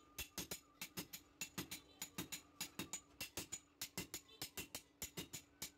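Hand hammer and sledgehammer striking hot steel on an anvil in turn, a quick even rhythm of about six ringing metallic strikes a second, as a meat cleaver blade is forged.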